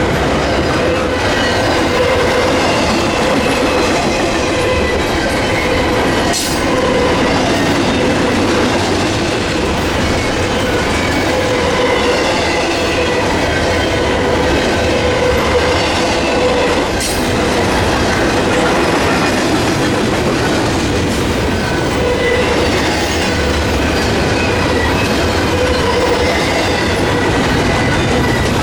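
A train rolling past at close range: steady rumble and clatter of wheels on the rails, with a whining tone that comes and goes. Two sharp clicks stand out, about six and seventeen seconds in.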